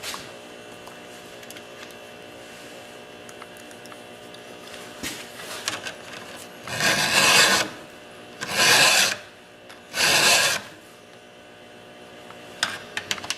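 A hand file rasping across a chainsaw chain's cutting tooth: three firm strokes, each under a second, about a second and a half apart, in the middle. A few light clicks of the file and chain being handled come before and after.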